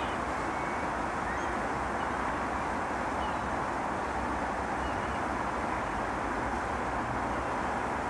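Steady outdoor background noise, an even rumble and hiss, with a few faint, brief high bird chirps.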